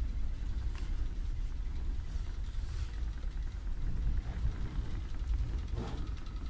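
Steady low rumble of a ferry under way, its engines and hull vibration heard from inside the ship, with a few faint clicks.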